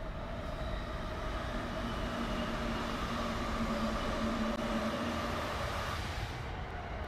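Train running along the track: a steady rumble with a few held whining tones, two of which stop about six seconds in.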